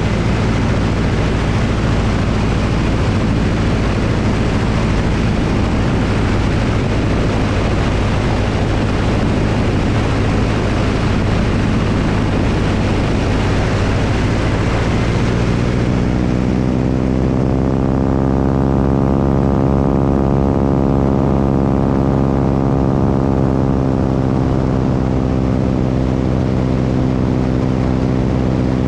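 Propeller airplane engine running steadily under heavy wind rush on the microphone; a little over halfway through the wind noise falls away and the engine's even tone comes through clearly.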